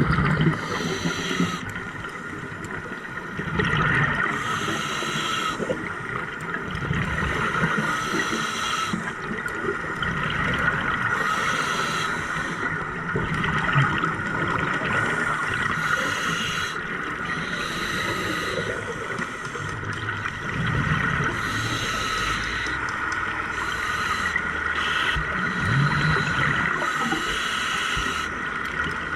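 A scuba diver breathing through a regulator underwater: hissing breaths and bubbling exhalations in repeated bursts every few seconds, over a steady hum.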